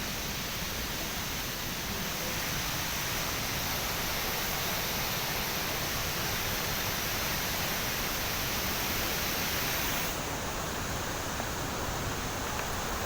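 Steady rush of falling water, with its higher hiss easing a little about ten seconds in.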